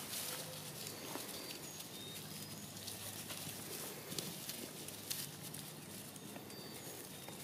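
Puppies scuffling and tugging over a rope toy on dry leaves and mulch: rustling and a scatter of small paw taps, with a few faint short high chirps now and then.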